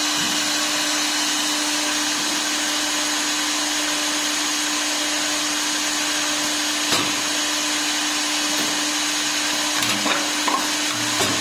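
CNC wood lathe's router spindle running at a steady speed: an unchanging whine over a bright hiss. A few short knocks about seven seconds in and again near the end.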